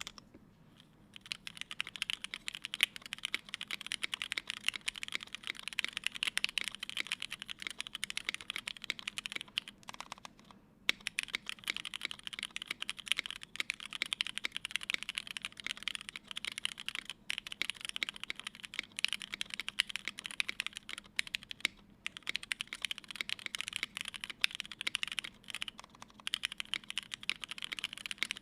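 Moontower v1 mechanical keyboard with lubed and filmed Hyperglide black linear switches in an aluminium plate, CRP keycaps, being typed on quickly and continuously. The typing starts about a second in, with a short pause about ten seconds in.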